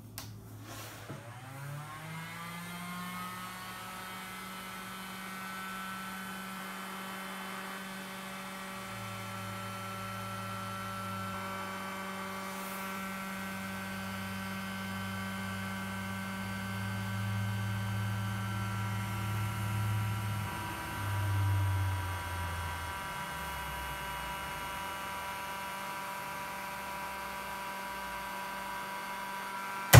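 Rockler benchtop edge banding machine switched on: its motor spins up in the first two seconds, then runs with a steady hum and whine. From about nine seconds in, a deeper drone joins while a plywood panel is fed past the feed roller, dropping in pitch around twenty-two seconds. A sharp click comes at the very end.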